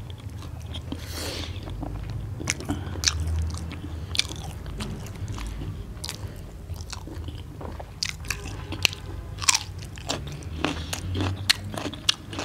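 Two people eating close to the microphone: wet chewing and biting into fried bhature and chole, broken by many short, sharp crunches, some of them bites of raw onion and cucumber.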